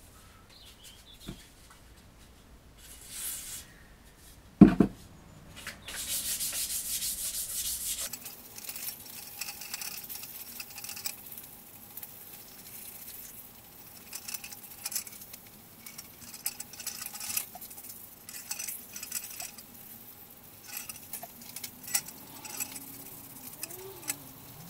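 Fine wet-and-dry sandpaper, about 1000 grit with oil, rubbed over a stainless steel motorcycle exhaust header: a scratchy rubbing in short, repeated strokes. There is a single loud knock a little under five seconds in.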